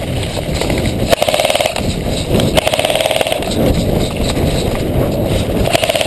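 Airsoft electric rifle firing three rapid full-auto bursts, each a fast run of clicks with a steady motor whine, over a steady low rumble.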